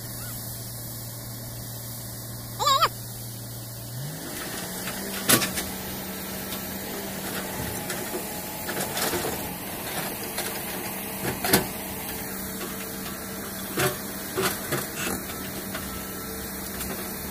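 Tata Hitachi excavator's diesel engine running steadily, then revving up about four seconds in and holding under load as the bucket pushes on a quarried marble block. Sharp knocks of the bucket against the stone come every few seconds, and a brief warbling whistle sounds near three seconds in.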